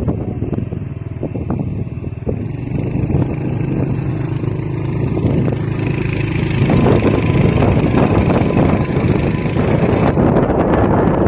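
Set of kite flutes droning on a flying kite, several steady tones sounding together, with wind buffeting the microphone. A higher whistling tone joins about halfway through.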